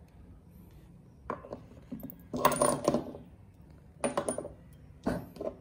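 Metal spark plugs clinking against one another and tapping on a tabletop as they are picked up and gathered in a hand. The clinks come in four short clusters, the loudest about two and a half seconds in.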